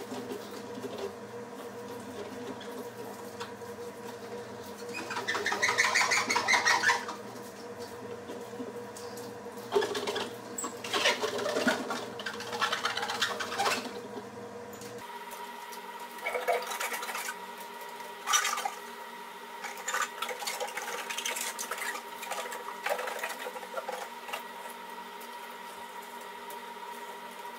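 Hand-scrubbing, rubbing and the odd clatter inside a commercial ice machine's stainless-steel bin as it is wiped clean, over a steady electrical hum. The lowest part of the hum cuts off about halfway through.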